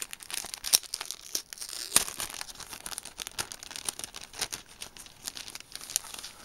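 Clear plastic wrapper crinkling and tearing as it is pulled open by hand around a stack of postcards: irregular crackles, with a couple of sharper snaps about a second and two seconds in.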